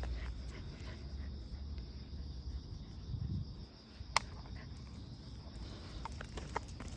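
Crickets chirping in a steady, high-pitched hum, over a low rumble, with one sharp click about four seconds in and a few small clicks near the end.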